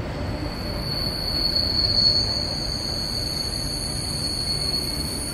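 Train at an underground station platform: a steady high-pitched whine over a low rumble.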